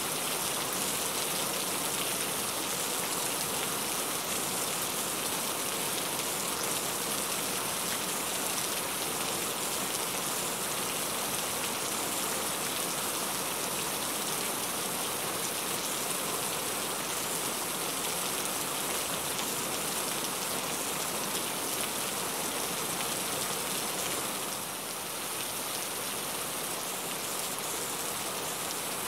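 Heavy rain falling steadily, an even hiss of many raindrops. It dips briefly a little softer near the end.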